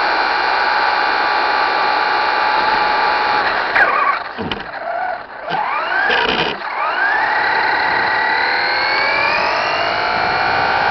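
Electric motor and geared drivetrain of a Traxxas Slash 4x4 RC truck whining at speed. About four seconds in the whine drops sharply and swoops up and down as the throttle is eased and reapplied, then climbs steadily in pitch as the truck accelerates.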